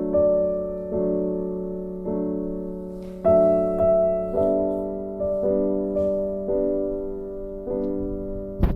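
Soft, slow background piano music, gentle chords struck about once a second and left to ring, with a short click near the end.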